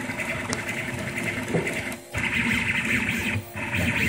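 Rostock MAX delta 3D printer running a print, its stepper motors driving the effector over the bed. The sound cuts out briefly twice, about two seconds in and again near the end.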